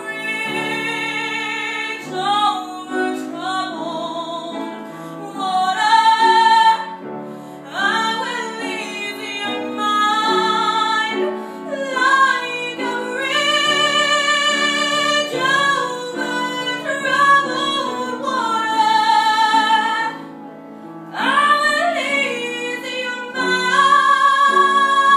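A woman singing solo in long phrases with a strong vibrato, in an operatic style. She pauses briefly near the end, then comes back in and holds a long note.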